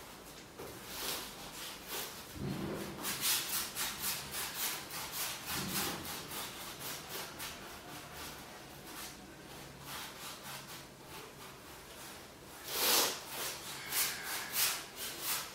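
Quick rubbing strokes of a painting tool on the painting surface, several a second, with a louder, longer stroke near the end.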